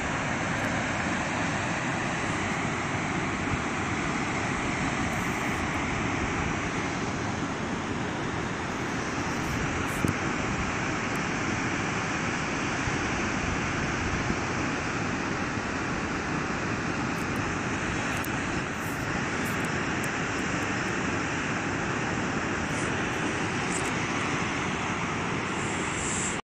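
Steady rush of the Reka river's waterfall and rapids in the gorge below, an even noise without gusts, cutting off suddenly at the end.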